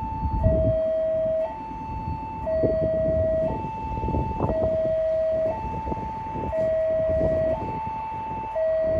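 Railway level-crossing warning alarm sounding: an electronic two-tone signal alternating between a higher and a lower tone, each held about a second, warning of an approaching train. The train's low rumble runs underneath.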